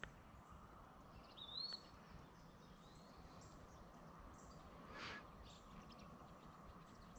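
Near-silent riverside ambience with faint bird calls: a wavering call about a second and a half in, a fainter one around three seconds, and a short scratchy sound about five seconds in.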